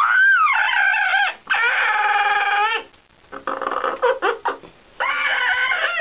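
Yellow-naped Amazon parrot giving drawn-out, wavering, whine-like "mmn" calls, her "yum" sound of liking something. A rising-and-falling note comes first, then long held notes, broken by a choppier stretch in the middle.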